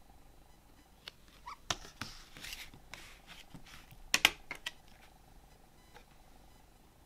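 Handling a CD digipak: a few light taps and a brief rustle, then a sharp cluster of plastic clicks about four seconds in as the disc is pressed off the plastic tray's centre hub, with a few smaller clicks after.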